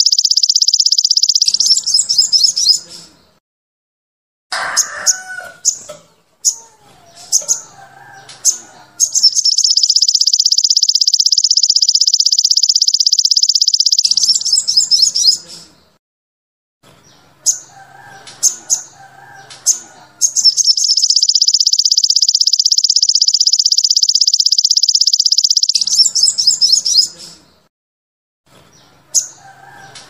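Sunbird (sogon / sogok ontong) song in its rapid-fire 'tembakan' style: long, loud, high buzzing trills of several seconds each, three times, separated by bursts of short sharp chirps. Fainter, lower warbling calls come in the gaps between trills.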